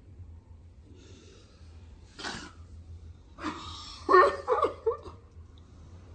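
A girl doing a put-on laugh: breathy puffs and a sharp exhaled burst, then a louder voiced laugh in short broken pulses about four seconds in.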